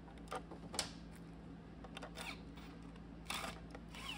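A few faint clicks and light knocks as a plastic transmission filter is pressed and seated onto an automatic transmission's valve body by gloved hands, over a low steady hum.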